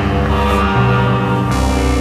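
Background music: an electronic track with sustained notes and a bass line that moves about every half second.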